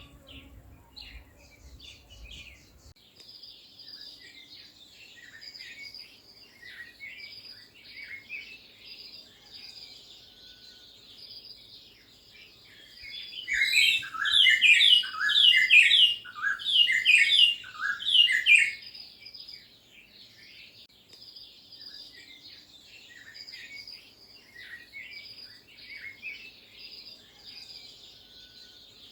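Wild birds chirping continuously. About halfway through, a louder flurry of rapid chirps lasts several seconds.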